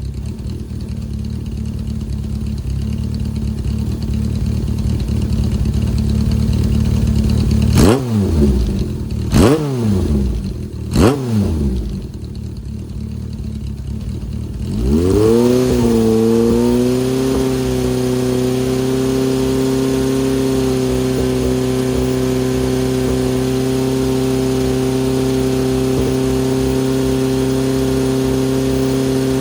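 Honda CB750 Four's air-cooled inline-four through a Yoshimura straight cyclone short exhaust: idling, blipped three times in quick succession, then revved up about halfway through and held at a steady higher speed until it drops back near the end.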